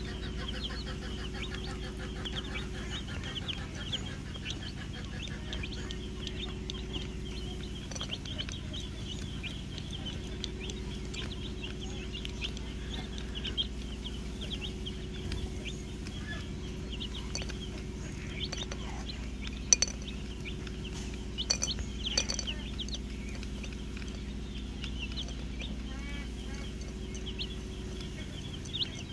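A flock of young chicks peeping continuously, many short high cheeps overlapping, with a few sharp taps partway through.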